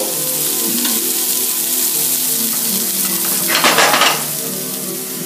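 Halibut fillets sizzling in olive oil in a nonstick frying pan over a gas flame, a steady hiss. A louder burst of sound rises briefly about three and a half seconds in.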